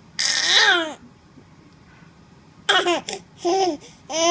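Nine-month-old baby babbling in high-pitched vocal outbursts: one of about a second that falls in pitch, then after a pause three shorter ones near the end.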